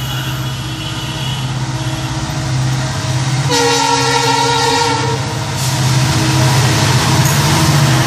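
WDP-4B diesel-electric locomotive's EMD two-stroke engine running steadily under power as it approaches, notching up. About three and a half seconds in it sounds one loud air-horn blast lasting nearly two seconds, and the engine and wheel noise grow louder toward the end as it nears.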